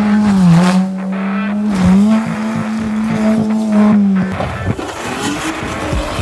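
A car engine held at high, nearly steady revs for about four seconds, its pitch dipping briefly twice, then an engine revving up with a rising pitch near the end.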